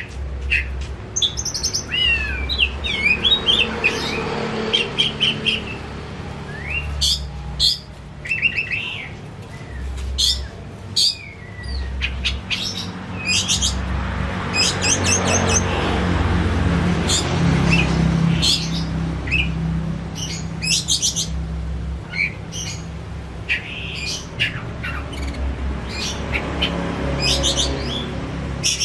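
Oriental magpie-robin singing loudly: a varied, continuous run of short whistles, sliding chirps and rapid trills, over a low steady hum.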